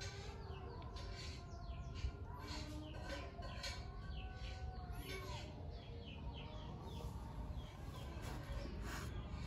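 Small tabby kitten mewing in a few short cries, with many quick, high, falling bird chirps in the background.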